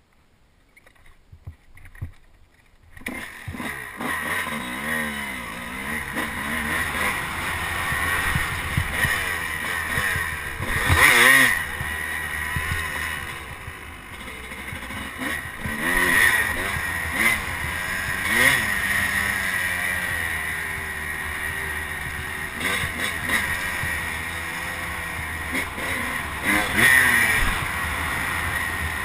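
Dirt bike engine revving up and down as it is ridden over a rough trail, picked up by a helmet-mounted camera. It comes in about three seconds in after near quiet. It rises to its loudest bursts of throttle several times.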